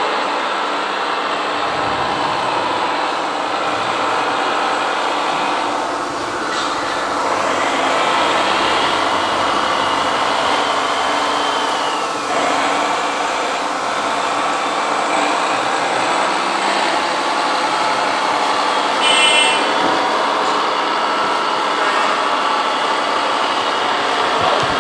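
Radio-controlled model construction trucks running: a steady whir of small motors and gears, with whines that rise and fall in pitch as they work. A short beep sounds late on.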